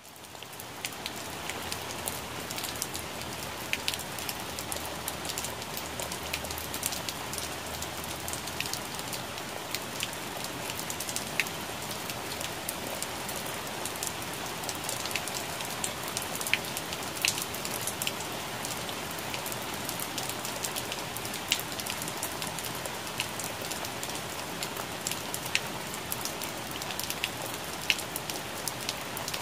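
Rain falling on plant leaves: a steady hiss of rainfall with many distinct drops ticking sharply on the leaves. It fades in from near silence over the first second or two.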